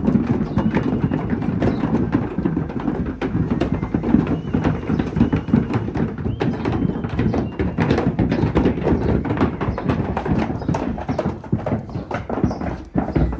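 Hooves of several miniature horses and a foal clattering on a wooden ramp as they walk up it: a dense, continuous patter of many overlapping hoof strikes on wooden boards.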